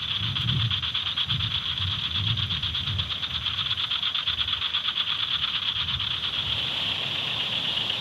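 Night chorus of insects and frogs: a steady, high-pitched, fast-pulsing trill, with a faint irregular low rumble underneath.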